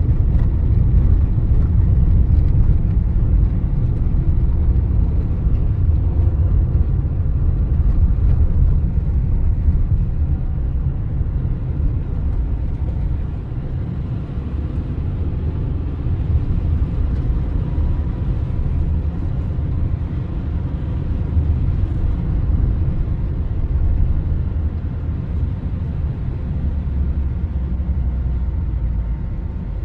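Car driving on a snowy, slushy road, heard from inside the cabin: a steady low rumble of engine and snow tyres on the road surface, easing a little after about a dozen seconds.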